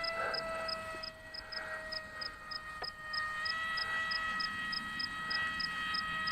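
Electric motor and propeller of the black Hadron RC model whining steadily in flight, its pitch stepping up slightly about halfway through. A short high beep repeats about three times a second.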